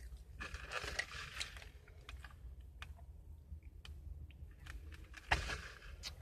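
Faint eating and drinking sounds of someone sipping through a drinking straw: scattered small clicks, and a soft hiss about a second in.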